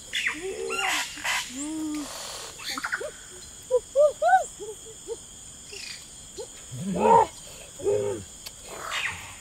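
Short wordless vocal calls, scattered hoots and grunts rising and falling in pitch, with the loudest pair about seven and eight seconds in.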